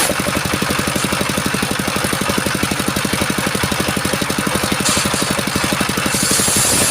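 Engine driving a homemade circular sawmill, running with a steady, rapid chugging beat. About six seconds in, a high hiss comes back as the saw blade bites into coconut wood.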